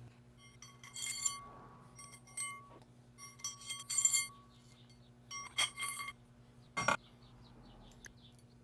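Steel machined parts clinking and ringing against each other as they are slid together onto a steel 5C collet draw tube, in about five short bursts with the loudest about 4 s in and a sharp knock near 7 s.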